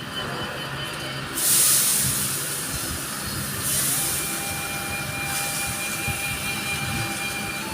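Food sizzling in a hot wok of oil: a loud hiss that starts suddenly about one and a half seconds in and carries on steadily.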